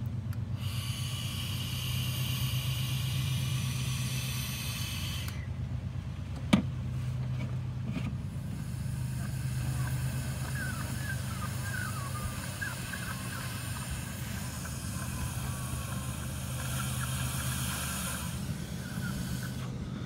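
Air hissing out of a vacuum leak where the intake manifold bolts to the engine on a 2000 Saturn S-series, as vape smoke is blown into a disconnected vacuum line. The hiss comes in two long stretches with a break about five seconds in, over a steady low hum, and there is one sharp click a little after six seconds.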